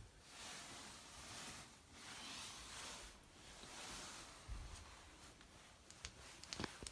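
Faint rustling that comes and goes in swells, with a low thump about four and a half seconds in and a few light clicks near the end.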